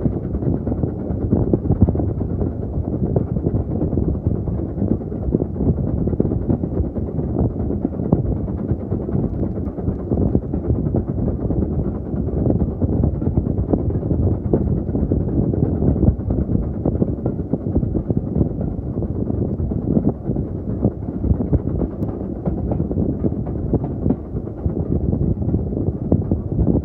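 Railway carriage running along the line: a steady rumble and rattle of wheels on rails with frequent small clicks, and wind on the microphone.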